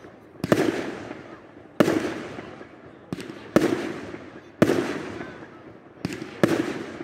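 Aerial fireworks shells bursting overhead: about seven sharp bangs, roughly one a second, two of them weaker, each trailing off in an echo.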